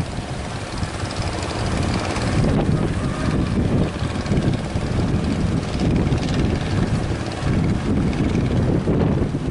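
Strong, gusty wind buffeting the microphone. It is a loud, rumbling rush that swells and drops from moment to moment.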